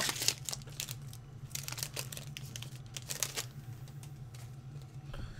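Plastic foil wrapper of a Pokémon trading-card booster pack crinkling and tearing as it is handled and ripped open, in several short bursts, over a steady low hum.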